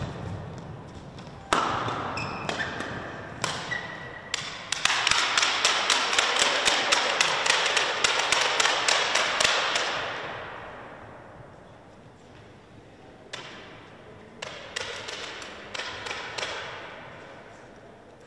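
Spectators in a sports hall cheering as a badminton rally ends, then clapping in rhythm at about four claps a second, fading out about ten seconds in. A few scattered claps or knocks follow near the end.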